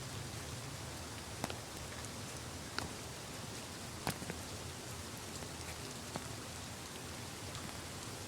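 Wet snow falling steadily with a soft rain-like hiss, and scattered sharp ticks of drops or clumps landing close by.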